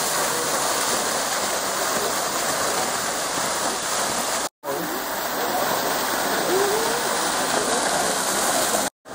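Fountain water jets splashing steadily into a garden pond, a continuous rushing hiss of falling water. It cuts out abruptly for a moment about four and a half seconds in and again near the end.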